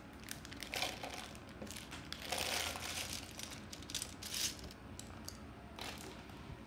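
Loose Lego pieces rattling and rustling in a plastic basket as a hand rummages through them, in several short spells.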